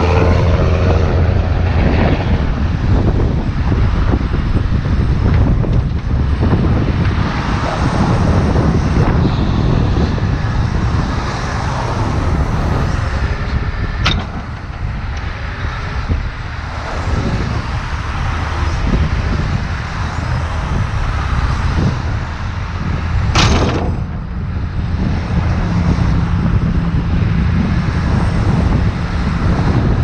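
Heavy diesel tow truck engine running steadily with a constant low hum, with wind buffeting the microphone. Two sharp knocks, one about halfway through and a slightly longer one near the end.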